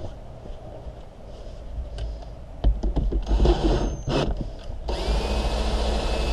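Ryobi cordless drill driving a windshield-removal winder that pulls the cutting line through the urethane: a few short trigger spurts, then from about five seconds in it runs steadily with a high whine.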